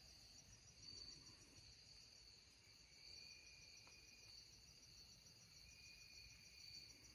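Near silence with a faint chorus of insects: a steady high trill, a fainter evenly pulsing trill above it, and a lower trill that comes and goes.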